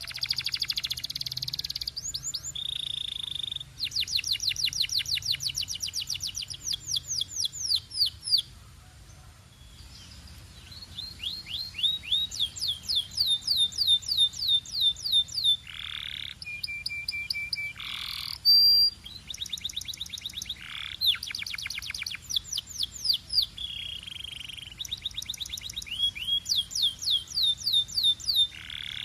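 A Belgian canary singing: a long run of trills, each phrase a fast series of quick downward-sweeping notes, changing from one phrase to the next, with a brief pause about a third of the way through.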